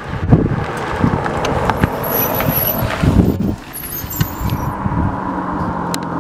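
Nissan 350Z's V6 engine as the car drives up, with wind buffeting the microphone. After a sudden break about three and a half seconds in, an engine runs on at a steady pitch.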